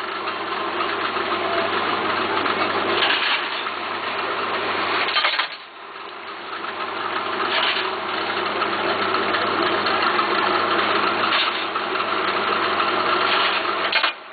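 A garment-workshop machine running steadily, dipping briefly about five and a half seconds in and again near the end.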